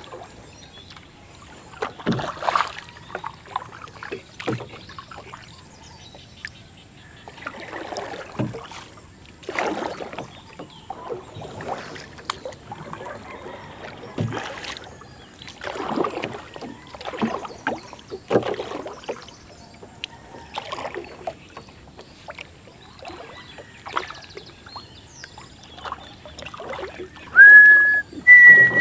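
A paddle dipping and pulling through pond water as a small outrigger canoe is paddled, a splash about every one to two seconds. Near the end a loud, high whistle-like tone sounds twice, stepping up in pitch.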